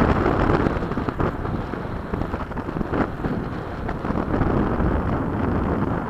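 Wind buffeting the microphone over the distant rushing of a 70 mm electric ducted-fan RC jet in flight, which is loudest near the start and then fades.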